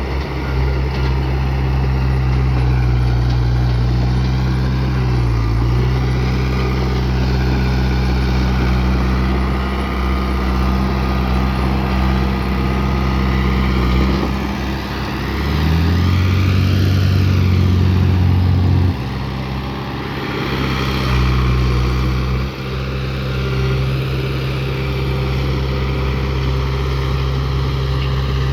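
Heavy diesel earthmoving engine running steadily. About halfway through, a deeper, louder engine note comes in for a few seconds and cuts off suddenly.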